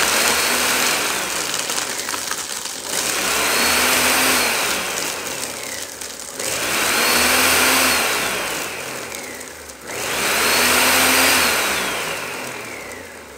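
Ninja blender motor running on a load of ice, liquid and torn book paper, straining, in repeated surges that start again about every three and a half seconds. Each surge begins loud with a whine that sinks in pitch, and the last one fades out near the end.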